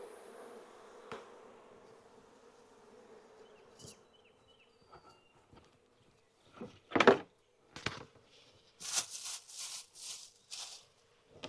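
A cloud of agitated honeybees buzzing in a steady hum that fades over the first few seconds. Then come a few sharp knocks and thumps, the loudest about seven seconds in, and several short hissing bursts near the end.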